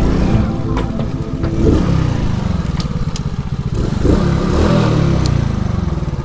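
Alpha moped's small single-cylinder engine running under way, its pitch rising and falling twice as it revs, about two seconds in and again around four seconds.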